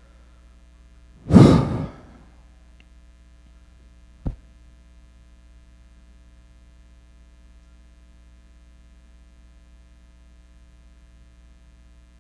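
A heavy sigh blown into a handheld microphone about a second in, then a short knock a few seconds later. The rest is the sound system's steady mains hum.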